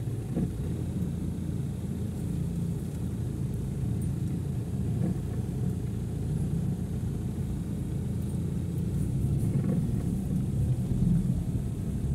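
Steady low rumble of a car's engine and tyres, heard from inside the cabin as the car drives along a wet street.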